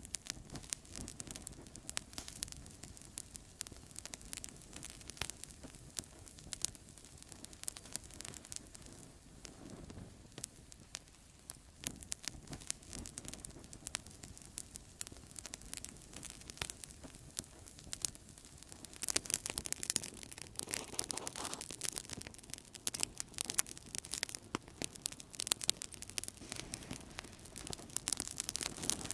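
Outdoor campfire burning, wood crackling and popping in quick irregular snaps over a soft low rush of flame; the crackling grows denser and louder about two-thirds of the way through.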